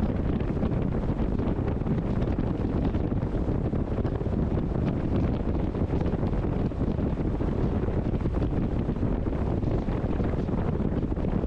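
Wind buffeting the microphone on a boat, a steady low rumble with no break.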